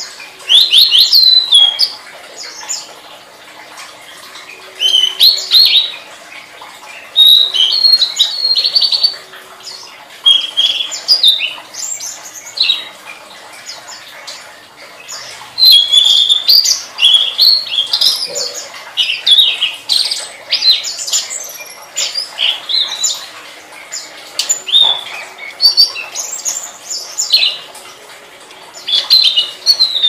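Tledekan, a blue flycatcher, singing in short bursts of quick, high twittering chirps, each burst about a second long, repeated after brief pauses and coming thicker in the second half. A faint steady hum sits underneath.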